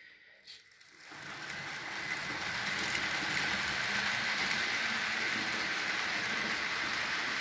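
Model freight train of open wagons running on the layout track: a steady rolling rattle of wheels on rails with a high hum, coming up about a second in and holding steady.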